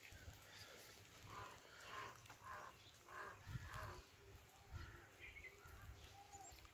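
Near silence: faint outdoor ambience, with a string of faint short sounds in the distance.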